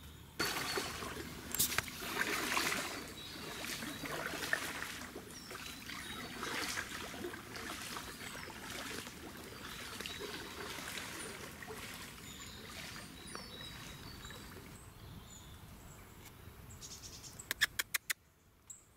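Kayak paddle dipping and pulling through calm canal water, splashing and dripping in repeated strokes close to the microphone. A quick run of sharp clicks near the end.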